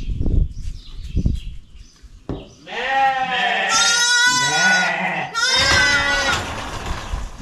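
Sheep bleating: two long calls that waver in pitch, the first starting about three seconds in and the second right after it. Before them come dull knocks and rustling from handling a newborn lamb.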